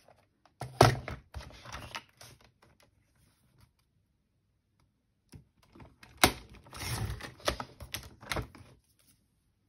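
Fiskars sliding paper trimmer cutting brown card: sharp clacks and scraping as the card is set against the clear cutting rail and the cutting head is run along it. One cluster comes about a second in, then after a quiet pause a longer run of clacks and scraping in the second half.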